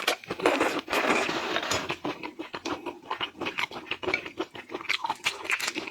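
Shell of a large shrimp being pulled apart and peeled by hand: a quick run of crackling, scratching clicks, densest in the first couple of seconds.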